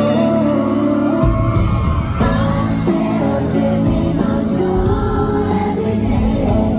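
Live pop song performance: a male lead vocal sings over a band, and the bass and drums come in about a second in.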